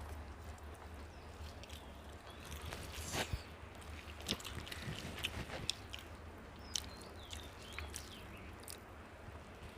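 People chewing mouthfuls of mutton biryani, with scattered soft mouth clicks and ticks, over a steady low hum.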